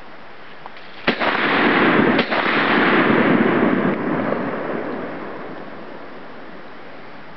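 Two shots from a Norinco SKS semi-automatic rifle in 7.62×39mm, about a second apart, each sharp crack trailing into a long echo that fades over several seconds.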